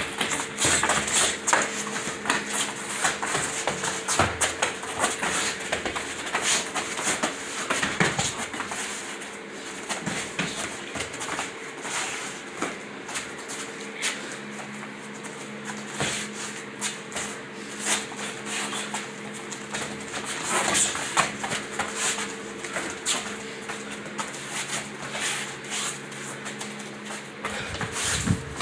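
Boxing gloves thudding in irregular punches and bare feet shuffling on a rubber floor mat during a sparring round, over a steady low hum.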